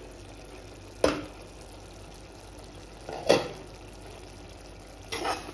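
Prawn masala simmering with a steady soft bubbling hiss in an uncovered pot. A few short knocks of a utensil or lid against the pot come about a second in, at about three seconds in (the loudest) and near the end.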